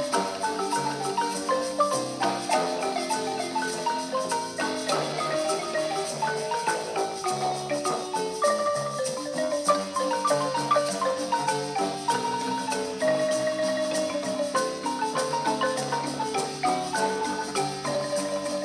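Handmade wooden marimba with long pipe resonators, played with mallets: a quick, continuous melody of many short struck notes over lower bass notes.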